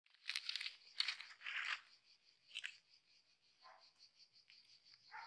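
Dry fallen poplar leaves crunching and crinkling under a hand. There are several bursts in the first two seconds and fainter ones later, over a steady, high, pulsing trill.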